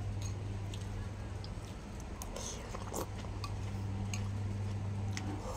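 A person chewing and slurping noodles, with light clicks of a fork and spoon against the bowl, over a steady low hum.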